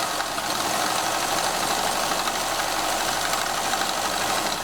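Pfaff 211 sewing machine running steadily at speed, sewing a cam-disc elastic stitch; it stops abruptly near the end.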